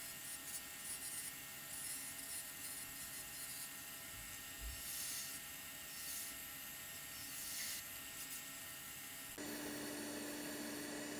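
Wood lathe turning a small spindle, played sped up, giving a thin whir with brief hissy bursts as the tool cuts. About nine seconds in the sound switches abruptly to a steadier, slightly louder hum with one low tone as sanding begins.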